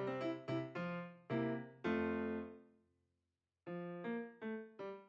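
Background piano music, a gentle run of single struck notes that die away. About three seconds in the music fades to a short silence, then starts up again.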